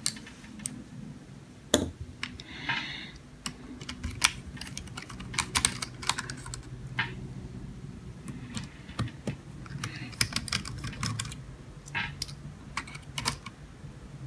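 Irregular small clicks and taps of a metal precision screwdriver working on screws in a small laptop's plastic case, with hands handling the case; the clicks come in clusters about five seconds in and again toward the end.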